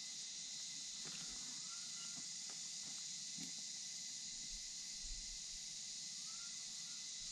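Steady high-pitched insect chorus, with a few faint clicks and two short rising bird chirps, one near the start and one near the end.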